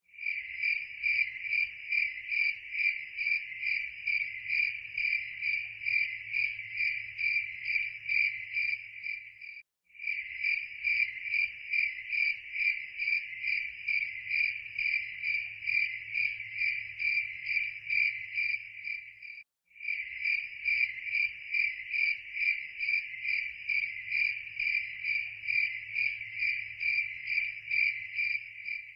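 Crickets chirping steadily, about three chirps a second, with the sound cutting out for a moment roughly every ten seconds as a looped recording restarts.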